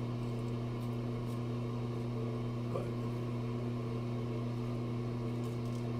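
Steady low electrical hum with a buzzing overtone, unchanging throughout.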